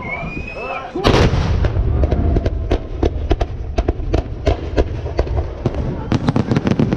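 Fireworks salute going off: a loud boom about a second in, then a rapid, irregular string of sharp bangs and cracks over a continuous low rumble. People's voices are heard just before the first boom.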